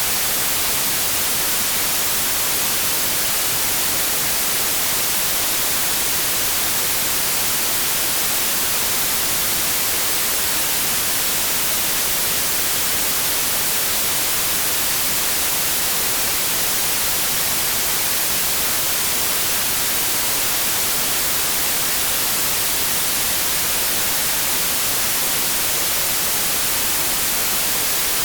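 Steady synthetic white noise: an even, unchanging hiss, brightest in the high frequencies.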